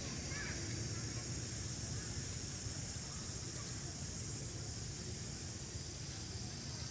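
Steady outdoor ambience: a constant high hiss over a low rumble, with a few faint short chirps about half a second in.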